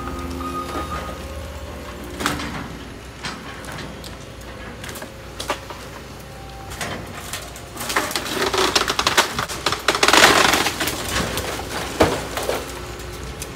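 Building demolition: repeated cracks and crunches of debris breaking apart over a low steady rumble, swelling into a dense crackling crash about eight to eleven seconds in.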